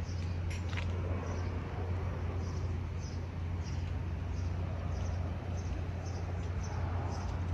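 Steady low rumble of outdoor ambience, with faint high chirps repeating about twice a second and a couple of light clicks about half a second in.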